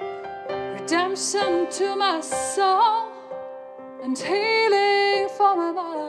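Slow worship song: a woman singing held, gliding notes over sustained keyboard or piano chords.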